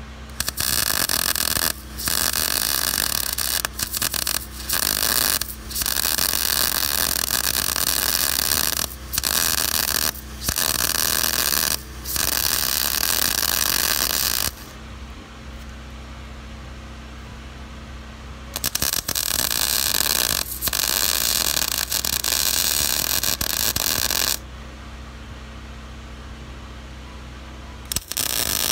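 Lincoln 140 MIG welder arc hissing as short beads are laid on steel, in runs of a few seconds with brief breaks. There is a pause of about four seconds around the middle and another near the end, after which the arc strikes again.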